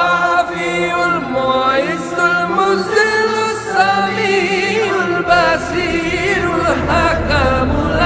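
Islamic devotional vocal music (a nasheed): voices singing a wordless, ornamented melodic line with wavering pitch, and a low hum coming in about five seconds in.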